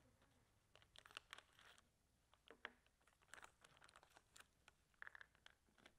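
Faint crinkling of a clear plastic spare-parts bag being handled, a few scattered soft crackles and clicks against near silence.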